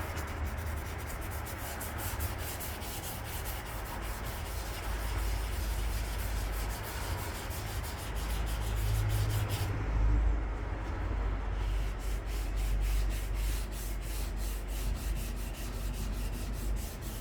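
Sandpaper being rubbed back and forth by hand over the primed hood of a 1958 Johnson outboard motor in quick, repeated strokes, sanding out small marks and divots before paint.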